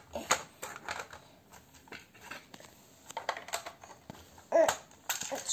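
Plastic LEGO parts clicking and knocking as the blue fuselage pieces of a LEGO City passenger airplane are handled and pressed down against a wooden floor, a few scattered clicks at a time. A brief voice sound comes near the end.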